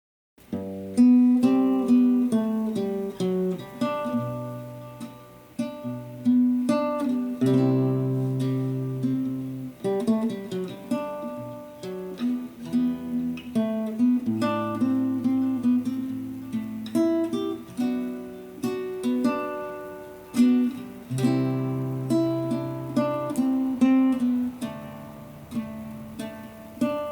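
Solo acoustic guitar playing a slow melody in plucked single notes over held bass notes, starting about half a second in.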